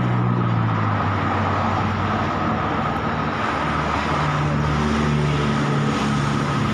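Steady road traffic: passing vehicles' engines humming and shifting in pitch over a constant wash of traffic noise.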